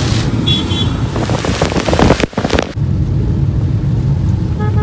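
Inside a car driving in heavy rain: a steady low rumble of the car on the road with rain hissing on the windscreen. A horn starts to sound near the end.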